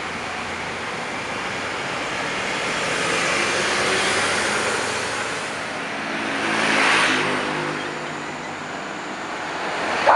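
Steady road traffic noise with a motor vehicle passing close, its engine and tyre noise swelling to a peak about seven seconds in and then fading.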